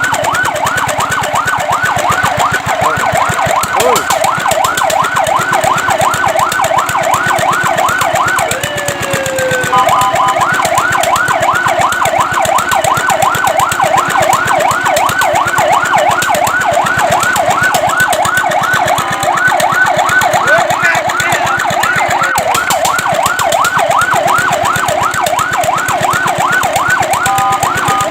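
Fire truck's electronic siren in fast yelp, its pitch sweeping up and down several times a second; it breaks off briefly a few times with a falling glide or a short steady tone before the yelp resumes.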